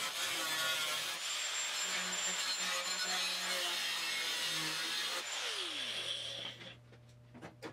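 Angle grinder running against the sheet-steel rear deck panel of a Triumph TR6. About five seconds in it is switched off, and its whine falls in pitch as the disc spins down. A few light knocks follow near the end.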